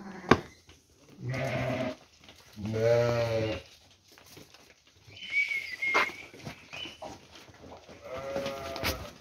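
Sheep in a flock bleating: three deep baas of about a second each, the second the loudest, with a few sharp knocks in between.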